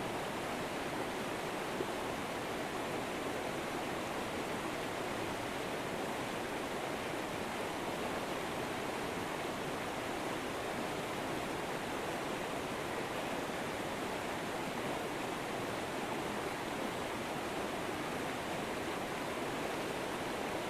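Steady rushing of a flowing river or stream, an even wash of water noise that does not change.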